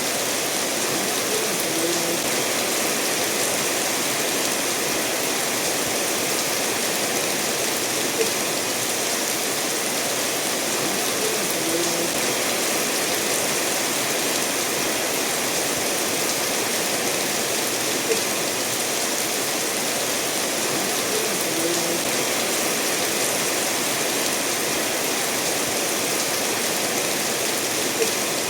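Steady rain falling, blended with a stream of water running over stones, with a faint tick about every ten seconds.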